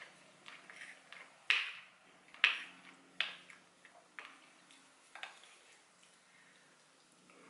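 Close-up eating sounds: a wooden spoon scraping and knocking in a bowl of rice and fruit salad, and chewing, as a run of sharp short clicks. The loudest two come about one and a half and two and a half seconds in, with quieter ones up to about five seconds in.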